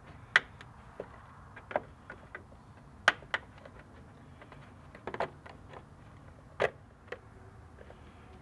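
Sharp plastic clicks and snaps as push-in retainer clips holding a car's engine-bay air intake duct are pried loose with a small hand tool. About half a dozen separate clicks, the loudest near the start and about three seconds in.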